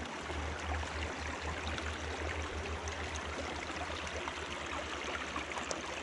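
Shallow stream running over rocks and stones, a steady rush of water with a low rumble underneath.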